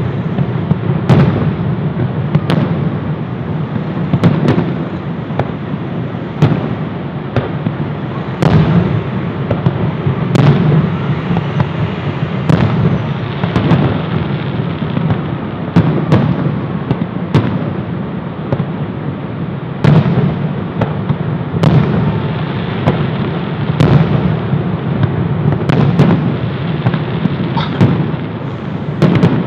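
Fireworks display: aerial shells bursting one after another, a sharp bang every second or two, over a continuous low rumble.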